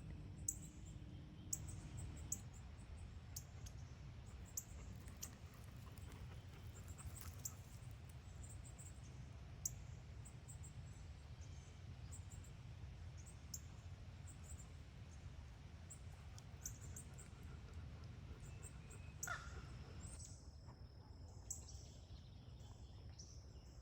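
Wild birds calling faintly: short high chirps scattered throughout, and crows cawing, over a steady low background rumble.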